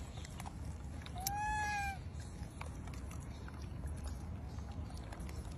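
Baby macaque giving a single short, arched crying call about a second in, over a low steady background rumble.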